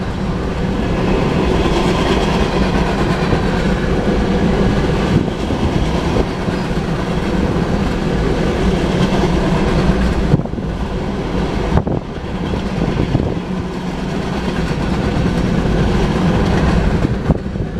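Loaded covered hopper cars of a freight train rolling past, with a steady, loud rumble of steel wheels on rail. The sound drops off near the end as the train clears the crossing.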